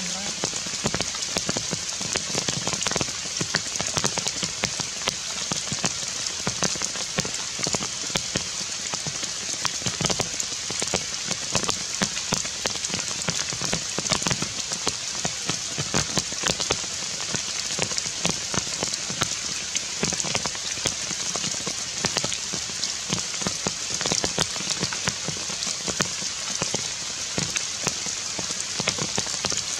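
Heavy rain falling on forest leaves: a steady hiss with many separate drop hits.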